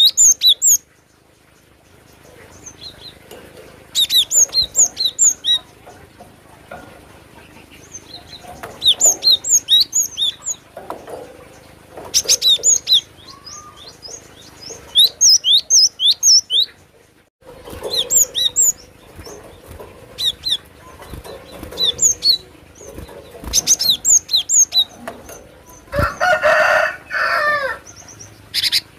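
Cinereous tit (glatik batu) singing: repeated bursts of rapid, sharp high chirps, each run lasting a second or two, with short pauses between. About 26 seconds in, a lower, denser rasping burst cuts in briefly.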